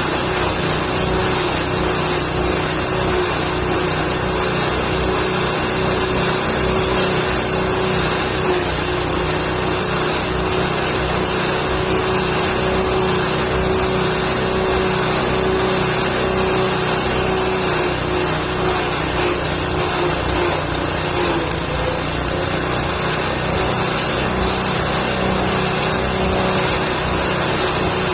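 Forage chopper machine for goat feed running steadily at speed, a continuous engine-driven hum with a brief dip in pitch about 21 seconds in.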